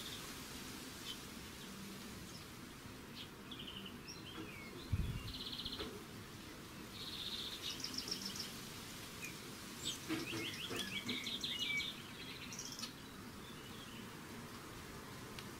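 Small songbirds chirping in quick, evenly spaced series several times, over a faint steady outdoor hiss. A single dull, low thump comes about five seconds in.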